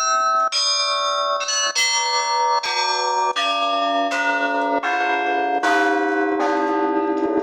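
Church bells ringing: bells of different pitches struck one after another, about two strokes a second, each ringing on under the next, with a deeper bell sounding in near the end.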